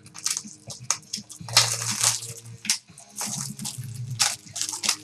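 Plastic trading-card packaging crinkling and rustling in irregular bursts as cards are unwrapped and handled.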